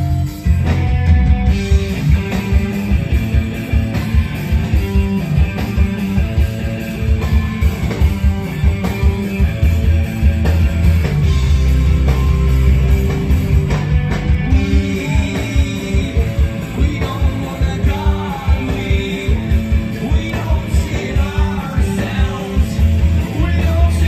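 Live rock band playing loudly: distorted electric guitars, bass guitar and drums, with sung vocals coming in.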